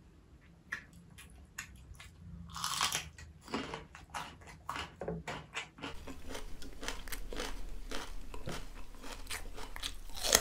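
Crisp bites and crunchy chewing of raw cucumber close to a clip-on microphone: a few scattered crunches at first, then steady crackly chewing from about six seconds in, and a loud crisp bite at the end.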